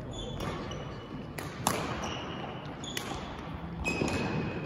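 Badminton rally: rackets striking the shuttlecock about once a second, the sharpest hit about a second and a half in, with short squeaks from shoes on the court floor in between.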